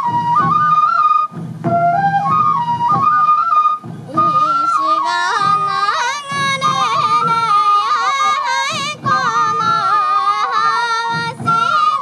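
Sansa odori festival music: a bamboo fue flute plays a stepping melody over the steady beat of the dancers' taiko drums, with a singing voice joining from about four seconds in.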